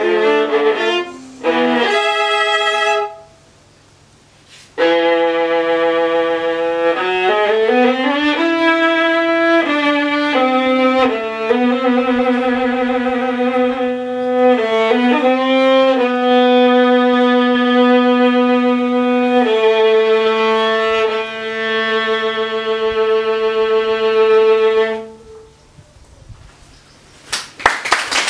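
Solo viola played with the bow: a quick run of notes, a brief pause, then slow, long-held notes ending on a sustained final note that fades out, closing the piece. Applause starts just before the end.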